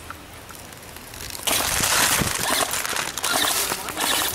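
Loud crunching and rustling, like footsteps through dry fall leaves and brush, starting about a second and a half in.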